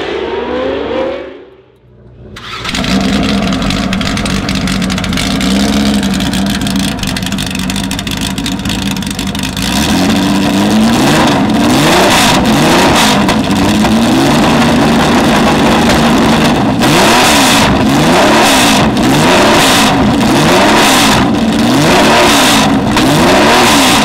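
Cosworth DFV V8 of a Lotus 77 Formula One car. After a brief drop about two seconds in, it runs at a steady pitch. From about halfway it is revved up and down over and over, roughly once a second.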